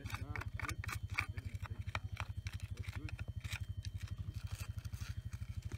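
A small hand tool scraping and clicking through campfire ash and charcoal, in short irregular strokes, over a steady low pulsing hum.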